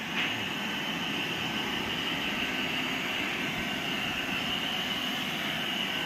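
Handheld electric hair dryer blowing steadily as it dries a German Shepherd's wet coat after a bath.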